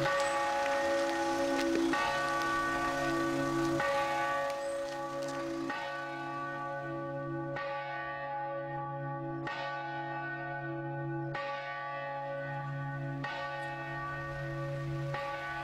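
Church bell tolling slowly, struck about once every two seconds, each stroke ringing on into the next.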